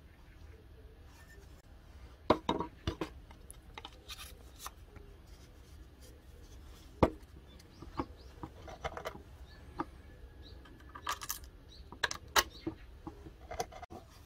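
Handling noise from a flat steel axe head and a wooden handle being turned over, set down and fitted together on wooden boards: scattered light clicks, clinks and knocks of metal and wood, with a few sharper taps.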